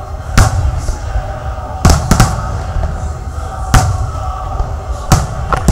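Aerial fireworks shells bursting: about six sharp bangs at uneven intervals, two of them close together about two seconds in. Music with steady tones plays underneath, over a low rumble.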